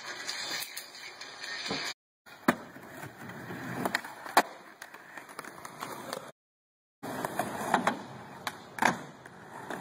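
Skateboard wheels rolling on concrete, with sharp clacks of the board landing and striking the ground. The loudest clack comes about four seconds in, and the sound drops out to silence twice.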